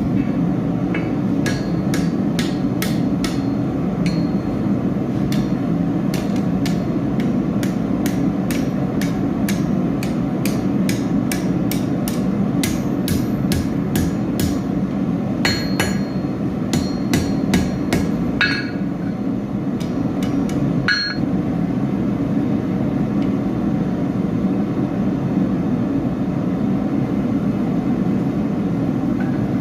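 Blacksmith's hammer striking hot steel on an anvil in quick, irregular blows for about twenty seconds, then pausing, with a few more strikes near the end. A steady low rumble runs underneath.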